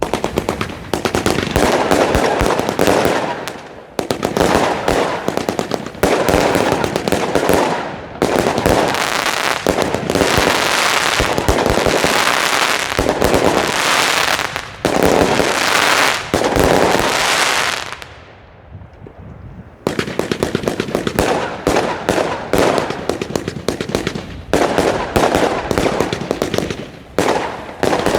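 Wolff Sledgehammer 300-shot firework cake firing rapid, dense volleys of shots. The volleys come in sections with brief lulls between them, and a pause of about two seconds comes about two-thirds of the way through before the firing starts again.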